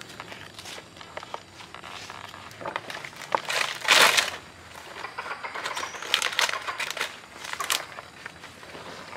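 Fresh banana leaf torn and stripped from its stalk by hand: rustling and ripping, loudest in one long rip about four seconds in, with more crinkling bursts around six to eight seconds.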